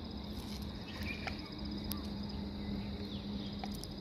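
A steady high-pitched insect trill with a few bird chirps over it, a low steady hum that stops near the end, and a couple of sharp clicks.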